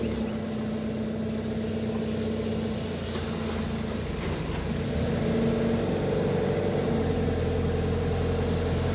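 Diesel engine of a Kato HD450 long-reach excavator running steadily as it works the boom and bucket, a deeper hum coming up about seven seconds in. Faint short high chirps recur over it.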